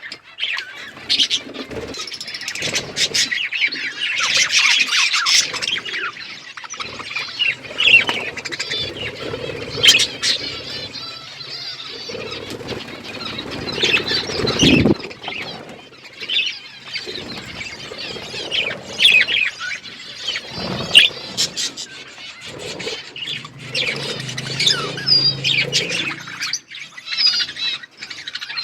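A flock of budgerigars chattering: many overlapping chirps, warbles and squawks.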